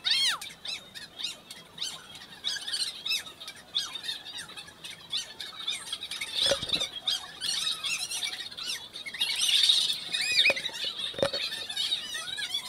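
A crowd of birds chirping and squawking, many short calls overlapping, with a few louder, lower calls about halfway through and again near the end.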